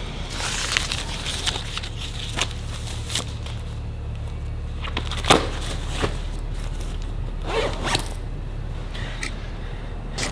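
Backpack being handled and zipped: rustling with several short zip strokes and clicks, over a steady low hum.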